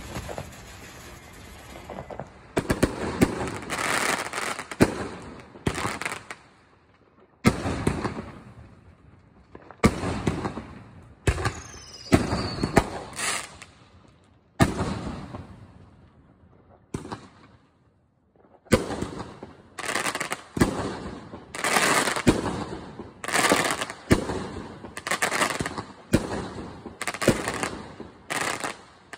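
Aerial fireworks going off in quick succession: sharp bangs, each trailing off with crackle. There is a short falling whistle about twelve seconds in, and a lull before a dense run of bursts in the last ten seconds.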